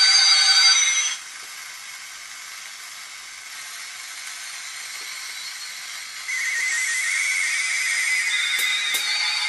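Tesla 563A tube radio giving out strange sounds: several steady high whistling tones over a hiss cut off abruptly about a second in, leaving a steady hiss. About six seconds in, whistling tones come back over the hiss.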